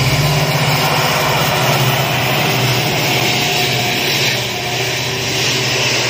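Indian Railways passenger train passing on the track: a steady, loud rumble of locomotive and coaches with a low hum running through it.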